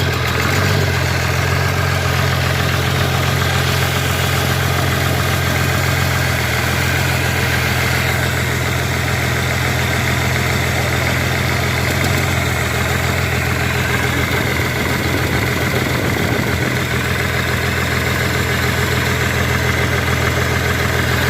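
Cat 320D2 excavator's diesel engine idling steadily, just after being started.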